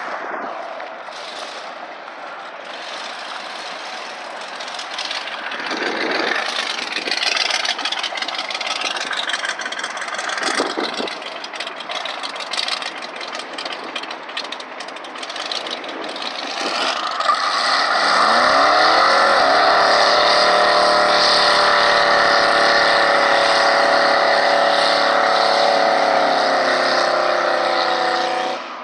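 Rat rod truck engine doing a burnout. After a stretch of engine revving, the revs climb and are held high and steady for about ten seconds with the tyres spinning, then cut off suddenly near the end.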